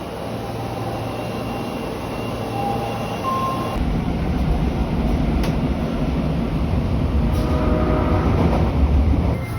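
Osaka Metro 22 series subway train running through a station after sounding its horn, the rumble of wheels and motors growing louder from about four seconds in and dropping away just before the end.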